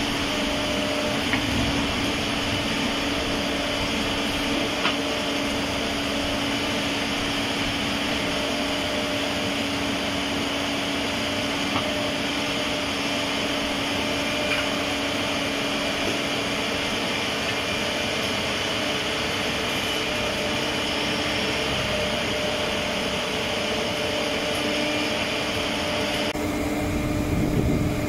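Menzi Muck 535X walking excavator running steadily: an even mechanical drone with a constant hum. There are a few faint clicks.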